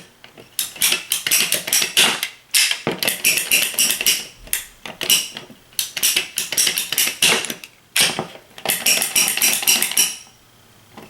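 Hand PVC pipe cutter cutting 1/2-inch PVC pipe: fast runs of sharp clicks in four bursts, with short pauses between them.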